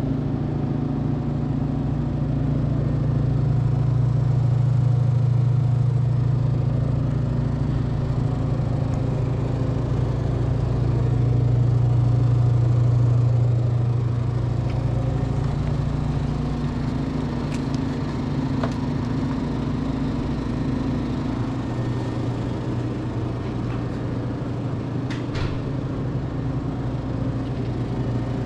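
Vending machines running with a steady low mechanical hum, typical of a refrigerated machine's compressor and fans, with a few faint clicks in the second half.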